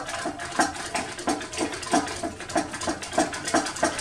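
Spoon stirring supplement powder in a cup, clinking and scraping against the sides in a steady rhythm of about three strokes a second.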